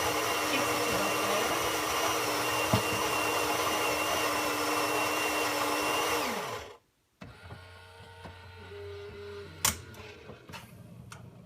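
Saeco Incanto Classic coffee machine's built-in grinder grinding beans for a cup: a steady motor whine over a gritty grinding noise for about six seconds, then winding down in pitch and stopping. Quieter mechanical clicking from the machine follows, with one sharp click near the end.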